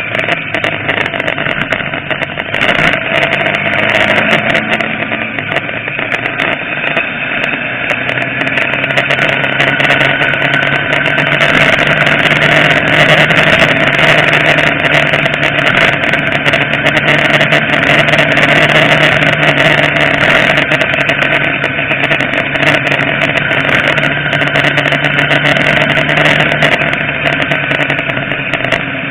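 Motorcycle engine running steadily under way, with heavy wind rush over the onboard microphone; the engine note climbs a little about eight to ten seconds in and then holds.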